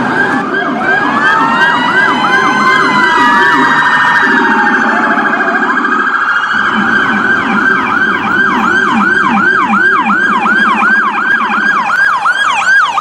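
Electronic emergency-vehicle siren tones, several layered: fast sweeps under a slow rising-and-falling wail in the first few seconds, then a rapid run of falling sweeps, about three a second, from about halfway on.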